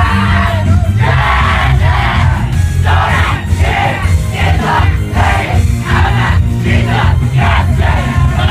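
Idol pop song played loud over a club PA during a dance break, with a heavy steady bass beat. Voices shout in time with the beat, about twice a second, from about three seconds in.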